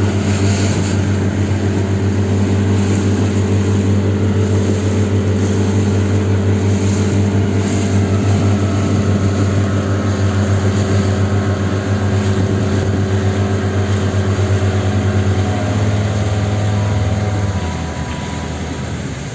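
An engine running steadily at a constant speed. About fifteen seconds in it throttles back and drops in pitch, and near the end it settles lower and quieter, toward idle.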